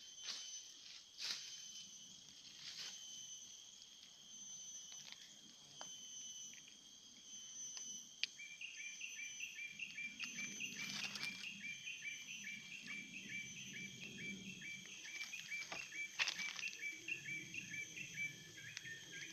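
Insects chirring steadily in two high, even tones. From about eight seconds in, a second caller joins with short chirps repeated about three times a second.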